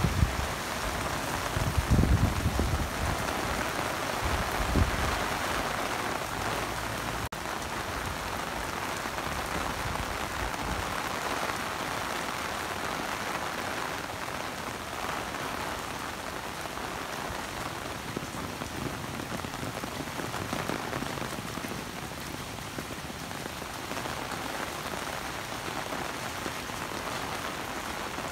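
Heavy rain falling steadily in an even hiss, with a few low thuds in the first five seconds.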